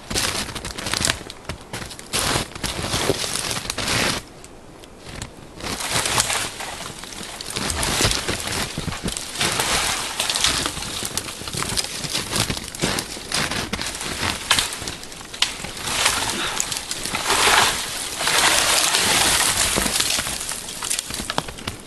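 Folding Coghlan's Sierra pruning saw cutting through a dead, dry tree trunk in repeated rasping back-and-forth strokes. There is a short pause about four seconds in, and the strokes are at their loudest near the end.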